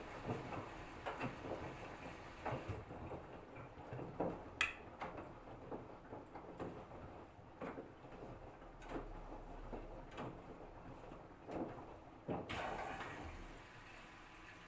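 LG Direct Drive front-loading washing machine tumbling a wet wash load: laundry sloshing and dropping in the drum in irregular soft splashes about once a second, with a brief louder rush of water about twelve seconds in that fades.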